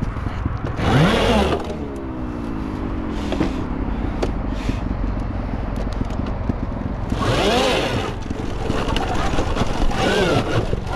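Arctic Leopard electric dirt bike's motor whining in short throttle bursts, the pitch rising then falling about a second in and again around seven seconds in, with the whine winding down between. Scattered knocks and scrapes from the bike on loose rock.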